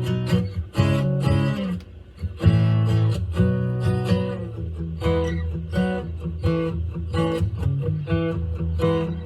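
Solo acoustic guitar strumming chords in a steady rhythm.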